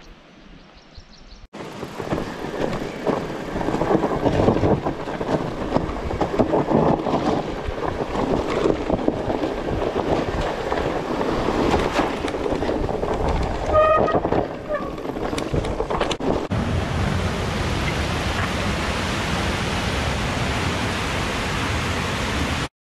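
Mountain bike riding down a rough dirt forest trail, heard from on the bike: tyres crunching over dirt and stones, the bike rattling, and wind on the microphone, with a brief squeal about two-thirds of the way through. Then a sudden cut to a mountain torrent rushing steadily.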